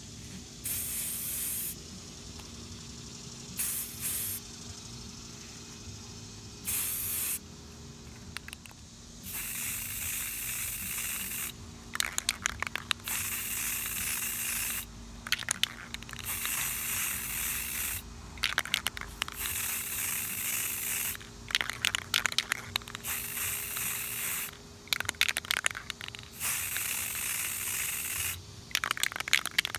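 Aerosol spray paint can hissing in repeated bursts as it coats the tumbler. The first few bursts are short, and from about nine seconds in they run one to three seconds each. Brief clusters of crackly clicks come between several of the bursts.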